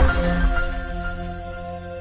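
Intro music: held tones over a low bass that slowly fade away.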